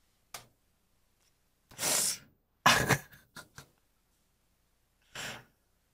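A person's breathy exhalations and sniffs with a stronger cough-like burst near the middle, a few short unvoiced bursts separated by silence.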